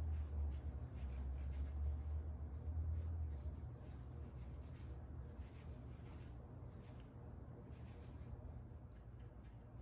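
Small foam roller spreading wet primer over a wooden rudder, a faint soft swishing repeated stroke after stroke. A low hum sits under it for the first three and a half seconds, then fades.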